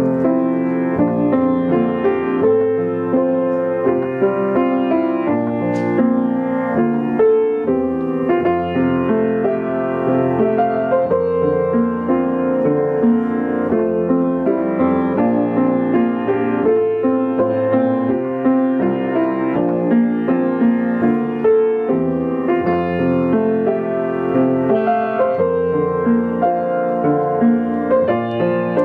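Solo piano playing a continuous piece of melody and chords at an even level.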